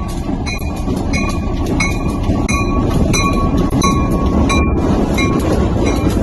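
A train passing with a dense, steady rumble. Over it, a short ringing ding repeats about three times a second. The locomotive's horn is not sounding.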